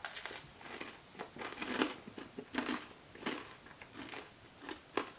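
Crunching and chewing of a chocolate bar filled with crisped rice: a crunch at the first bite, then irregular crunches as it is chewed.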